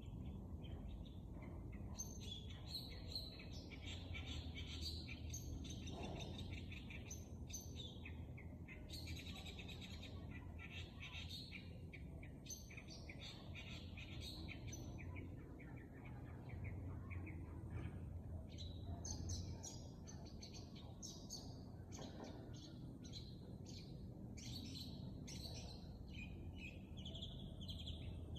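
Bird chirping and twittering in repeated bursts of rapid, short, high notes over a steady low background rumble.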